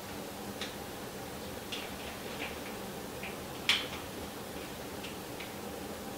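Light, scattered clicks and taps of hands working the e-bike's handlebar wiring, with one sharper click a little past the middle. A steady low hum runs underneath.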